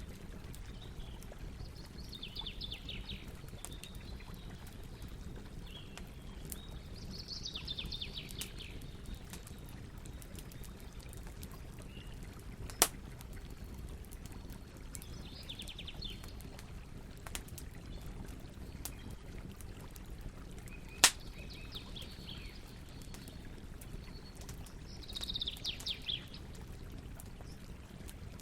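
Campfire burning with a steady low rush and two sharp pops, while small birds give short trilling chirps every few seconds.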